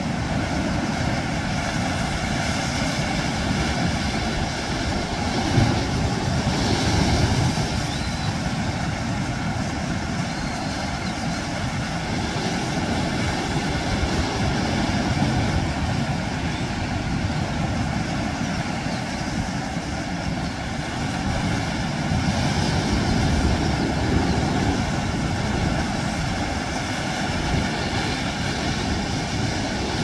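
Sea waves surging and breaking against rocks, a continuous rushing wash of surf that swells louder about six seconds in and again around twenty-two to twenty-five seconds in.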